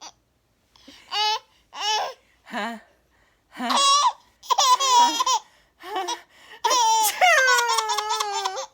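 A young child laughing and squealing in a run of separate high-pitched bursts, ending in one long squeal that falls in pitch.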